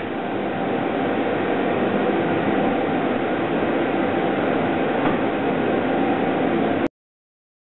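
Steady noise from the high-current test room after a short-circuit shot, with a faint held tone underneath. It cuts off suddenly near the end.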